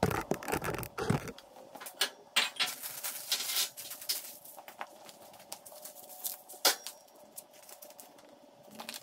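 Plastic hardware bags and paper crinkling and rustling as they are handled, with scattered clicks and knocks of small parts on a steel table. There are a few heavier thumps in the first second and a sharp click near the end.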